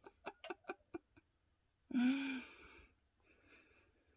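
A quick run of light clicks in the first second, then a short breathy sigh or hum from a person's voice about two seconds in.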